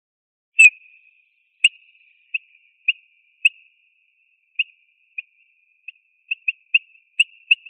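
Eurasian bullfinch calling: a dozen or so very short, high piping notes at one pitch, the loudest about half a second in, spaced irregularly and coming faster near the end.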